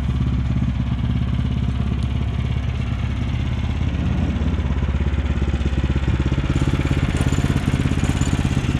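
Engine idling steadily with a deep, even hum.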